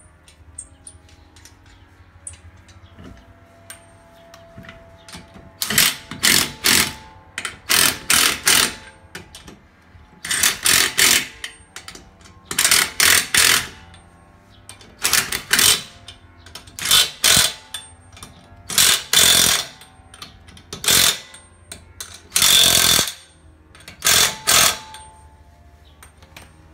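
Cordless impact wrench running lug nuts onto a car wheel, hammering in about ten short bursts of roughly a second each, one nut after another. This is the wheel being bolted back on during a tyre change.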